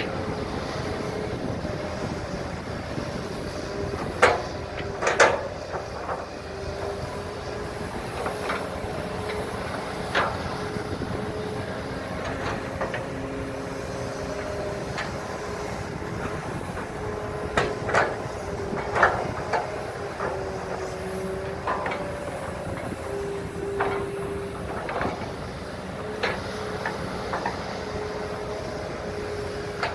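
Two working hydraulic excavators, a Kobelco and a Hitachi, with diesel engines running steadily under load while digging, and a hydraulic whine that steps up and down in pitch. Sharp knocks come from the buckets and booms now and then, two close together about five seconds in and a cluster a little past the middle.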